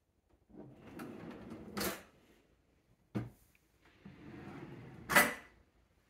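Kitchen drawers sliding on their runners twice, each slide ending in a sharp knock, with a single click between them. The second knock, about five seconds in, is the loudest.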